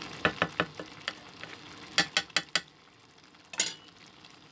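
Wooden spatula knocking and scraping against a cooking pot while stirring moringa leaves into a simmering coconut-milk vegetable stew. The knocks come as a few sharp clicks near the start, a quick run of four about two seconds in, and one more near the end, over a low simmering hiss that grows fainter in the second half.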